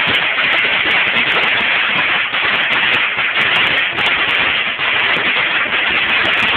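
A string of firecrackers burning on the road, going off in a rapid, continuous crackle of many small bangs.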